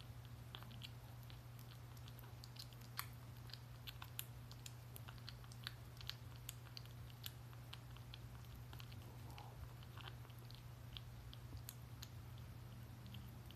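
A kitten chewing wet cat food from a steel bowl: faint, irregular little clicks and smacks of eating, over a steady low hum.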